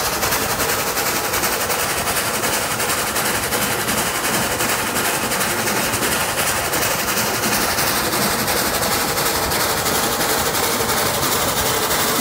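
Steam locomotives running at speed on parallel tracks: a fast, even beat of exhaust chuffs over steady rail and wind noise from the moving train.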